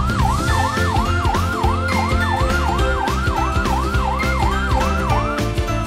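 Electronic fire-truck siren wailing in quick rising-and-falling sweeps, a little over two a second, stopping near the end, over background music with a steady beat.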